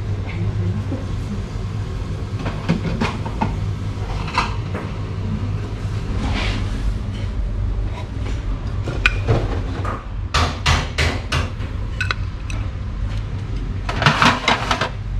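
Small ceramic side-dish plates and serving tongs clinking and knocking as side dishes are served and set down on a metal tray, the clacks coming thicker and louder in the second half. A steady low hum runs underneath.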